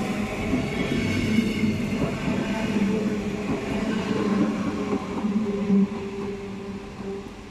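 BR 423 electric multiple unit running past at close range with a steady electric hum and wheels rolling on the rails, then fading in the last second or two as it moves away.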